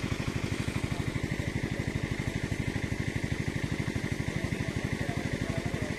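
Engine of a water pump running steadily as it drains a pond, an even chugging beat of about ten pulses a second.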